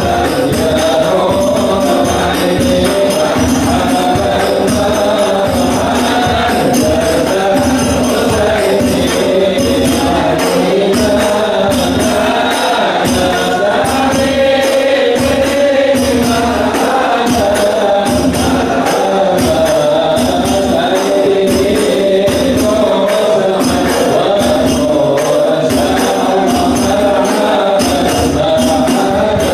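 A group of men singing Islamic devotional praise (sholawat) together in unison, over steady rebana frame-drum strokes with jingling cymbals keeping the beat.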